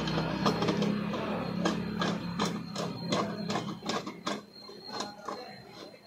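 Quick run of sharp plastic clicks and taps, about three a second, as the hall sensor is worked loose on an LG front-load washer's direct-drive motor stator. A low hum underneath fades away about four seconds in.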